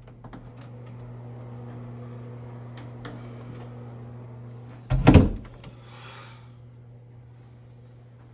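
A bathroom door being unlatched and opened, with small clicks, over a steady low hum. A single loud thump comes about five seconds in.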